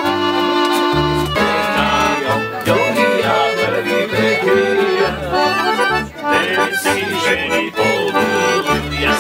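Folk music led by an accordion, played by local musicians. A held chord gives way about a second in to a quick melody over a steadily pulsing bass line.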